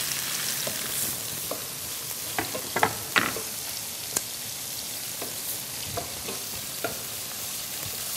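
Oil sizzling steadily as sliced onions in a steel pot and chicken pieces in a pan fry on a gas hob, with scattered light clicks and taps from stirring in the pot.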